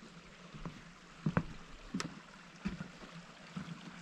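Footsteps on the wooden boards of a dock: a dull knock about every two-thirds of a second, with one sharp click about two seconds in.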